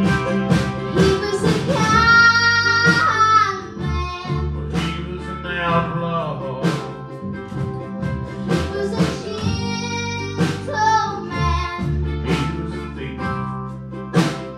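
Live acoustic string band playing: mandolin, upright bass and guitar over a drum keeping a steady beat of about two strokes a second. A woman's voice holds long wordless notes that slide in pitch.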